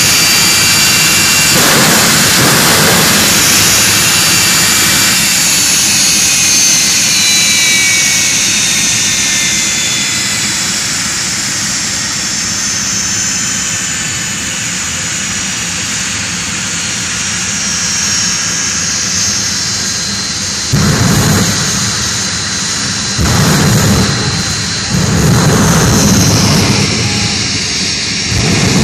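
Jet dragster's turbine engine running: a high whine falls in pitch over the first several seconds and settles into a steady roar. From about twenty seconds in, it surges several times in loud bursts of power.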